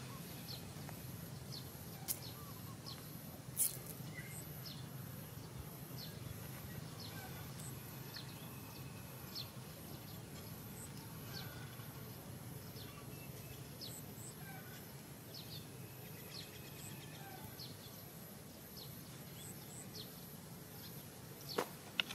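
Outdoor ambience: small birds chirping on and off over a steady low hum, with a few sharp knocks about two and three and a half seconds in and again near the end.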